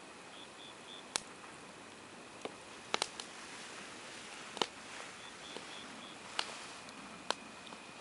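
Wood campfire crackling: irregular sharp pops and snaps, several in quick succession about three seconds in, over a soft steady hiss of burning.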